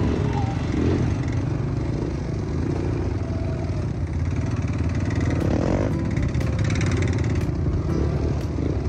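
Four-wheeler ATV engine running steadily under way on a dirt trail, heard from on board the machine.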